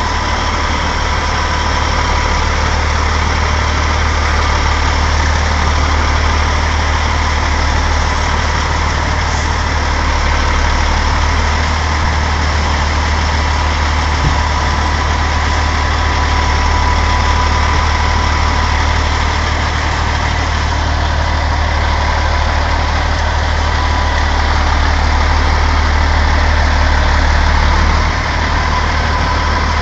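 Semi truck's diesel engine running steadily at low revs as the rig creeps forward under load: a loud, steady low drone with a thin steady whine above it.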